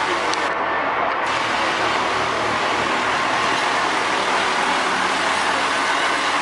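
A Liftall boat lift's engine running steadily as the forklift carries a boat on its forks, a loud, even mechanical noise.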